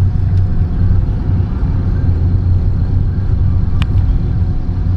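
A car engine running with a steady low rumble, and a single sharp click about four seconds in.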